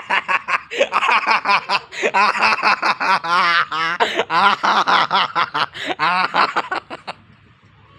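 A person laughing in quick, rhythmic bursts with a wavering pitch, stopping about seven seconds in.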